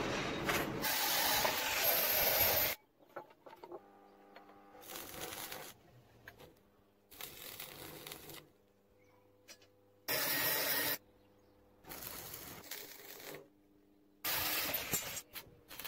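Arc (stick) welding: the electrode arc crackling and hissing in five or so separate runs of about a second each, with short pauses between. A louder, steadier hiss fills the first three seconds.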